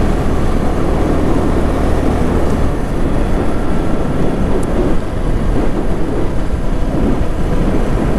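Wind rushing over a helmet-mounted microphone on a motorcycle at about 50 km/h: a steady, heavy noise with the stock Yamaha R15 V3's engine barely audible beneath it.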